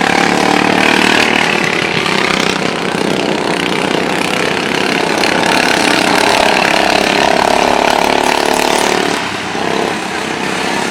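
Racing lawn mowers' small engines running hard at high revs, their pitch shifting as the machines pass and lap. The sound swells in the middle and eases off a little near the end.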